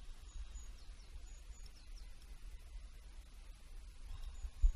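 Wind rumbling on the microphone, with faint small-bird chirps repeating in the distance. A single low thump near the end.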